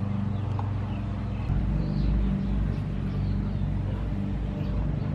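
A steady low engine hum with a low rumble under it, a little louder from about a second and a half in.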